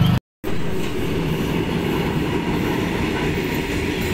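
Passenger train running on the rails, a steady rumble with no pauses, cutting in after a brief gap of silence.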